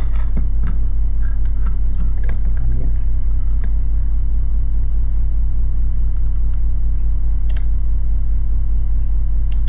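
Steady low electrical hum, with a few sharp isolated clicks from the Soviet SB-1M/50 electromechanical impulse counter's ratchet mechanism, about two seconds in and again near the end. Right at the end a quick regular run of clicks starts as the counter begins stepping.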